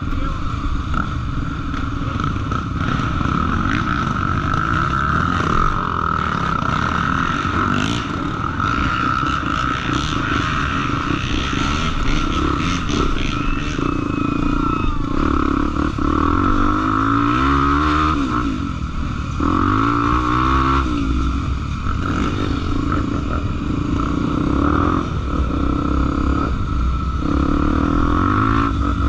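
Trail motorcycle engine running continuously while ridden off-road, revving up in two rising surges past the halfway mark, with some clatter.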